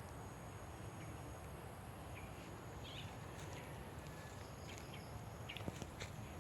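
Faint outdoor ambience in a vegetable field: a steady low rumble, a few faint high chirps about two and a half to three seconds in, and light clicks and rustles near the end.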